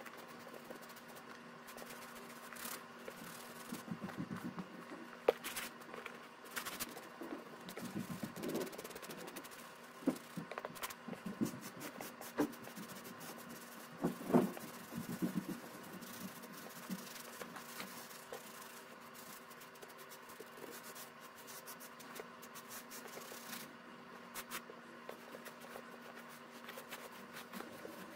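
Leather paddock boot being handled and cleaned by hand on a towel: irregular scrapes and rubs with occasional light knocks.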